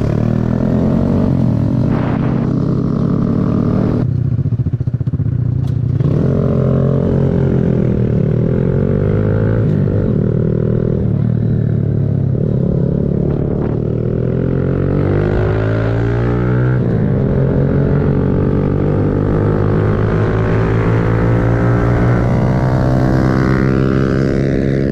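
Kawasaki Z125 Pro's 125cc single-cylinder engine running under the rider, its pitch rising and falling repeatedly as the throttle opens and closes through the gears. It settles to a lower steady note about four seconds in, then climbs in one long rise over the last several seconds.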